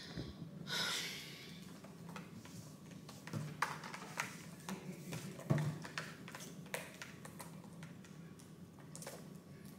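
Window blinds being opened: a short swish about a second in, followed by scattered light clicks and taps over a low steady hum.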